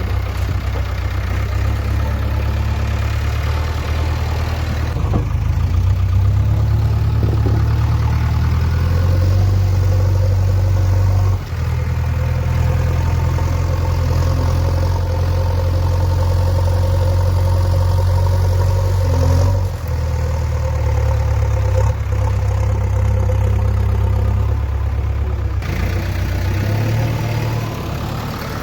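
Heavy diesel machinery engine running steadily with a deep drone, its tone changing abruptly several times.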